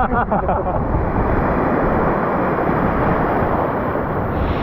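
Steady rushing noise of wind and sea water, with a voice briefly at the very start.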